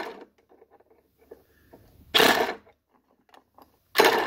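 Hand-cranked piston ring filer grinding the end of a hardened piston ring in short bursts, about one every two seconds.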